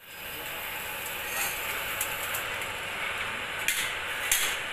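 Stainless steel corrugated exhaust flex pipe being bent back and forth in a jig, giving a few short metallic clicks over a steady hiss.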